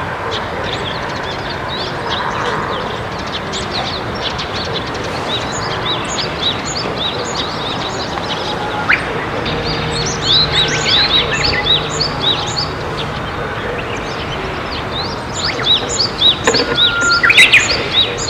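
Wild songbirds chirping and singing, many short repeated notes over a steady background hiss, growing busier about halfway through, with the loudest calls near the end.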